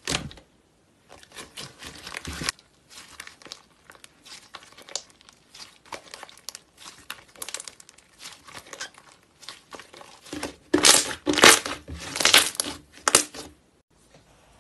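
Thick slime being stretched and worked by hand, crackling and tearing in quick irregular bursts. The loudest crackling comes in a cluster about three-quarters of the way in, and it stops shortly before the end.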